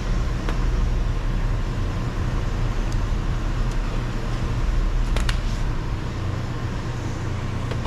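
Steady low hum of background vehicle or traffic noise, with a few light clicks and a sharper clack about five seconds in from a screwdriver working a screw out of a car's rear door trim panel.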